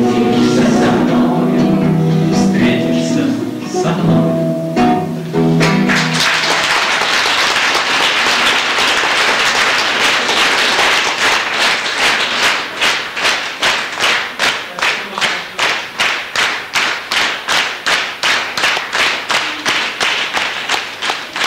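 Voices singing to an acoustic guitar end about six seconds in, and the audience breaks into applause. After a few seconds the applause turns into rhythmic clapping in unison, about two claps a second.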